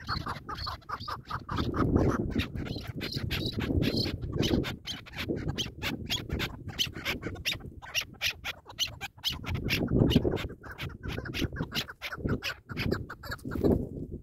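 Chukar partridges calling: a rapid, continuous run of short, repeated clucking chuk notes.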